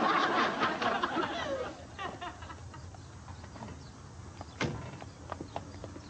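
Studio audience laughing, dying away over the first two seconds. About four and a half seconds in, a knock, then footsteps clicking on a hard floor at about two to three a second.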